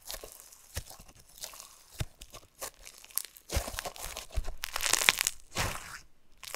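Clear blue floam slime, packed with small foam beads, being squeezed, stretched and folded by hand: irregular crunches and crackles, busiest from about halfway through.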